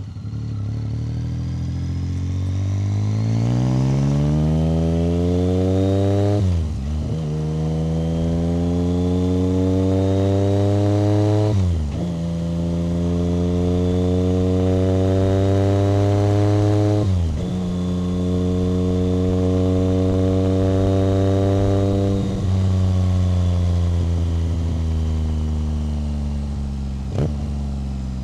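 A 1990 BMW K75's three-cylinder engine pulls up through the gears: revs climb steeply from low, then the pitch drops sharply at three upshifts about six, twelve and seventeen seconds in. Between and after the shifts it runs at fairly steady revs.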